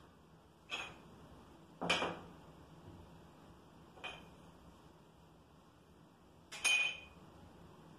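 Ceramic subway tiles clinking against one another as they are handled: four short ringing clinks, the loudest about two seconds in and a quick double clink near the end.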